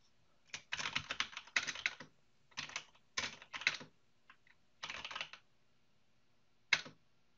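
Typing on a computer keyboard in several short runs of keystrokes with pauses between, as a short text comment is entered.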